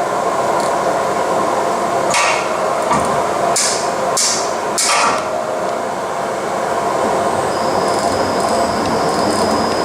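Vanguard CAK50186DI CNC lathe running with a steady hum, while its 4-position power-operated turret indexes with four sharp clunks over about three seconds. A steady high whine comes in near the end.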